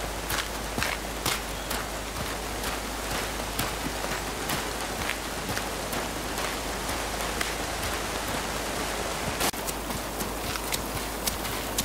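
Steady rain falling in woodland, with scattered sharp ticks of heavy drops landing close by.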